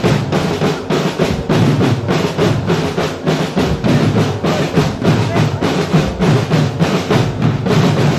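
Marching drum corps' drum line playing a fast, dense cadence of snare and bass drum strokes, stopping abruptly at the end.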